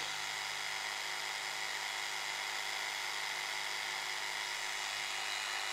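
DeWALT DCS335 20V barrel-grip jigsaw running steadily with no blade fitted, unloaded, its motor and plunger giving an even whir.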